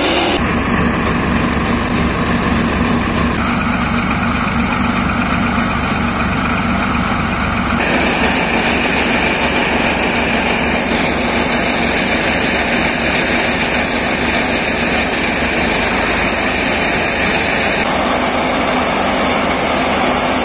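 Sonalika DI 42 RX tractor's diesel engine running steadily under load, driving a Shakti Farm paddy thresher, whose threshing drum and fans whir over the engine's low, even beat.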